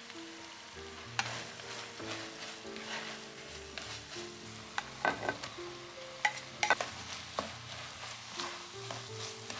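Chopped chicken gizzards and hearts sizzling in a hot pan while being stirred, with a metal spatula clanking and scraping against the pan several times, loudest about halfway through.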